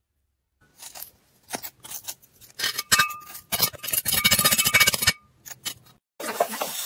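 A tool scraping dry moulding sand away from a freshly poured metal casting. It starts with a few separate gritty scrapes, builds to a dense run of scraping in the middle with a faint metallic ring, then more short scrapes and another long one near the end.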